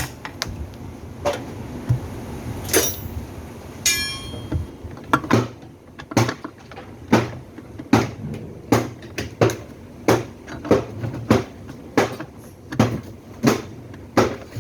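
Steady, repeated hammer blows, about one and a half a second, after a few scattered knocks. One strike about four seconds in rings with a clear metallic tone.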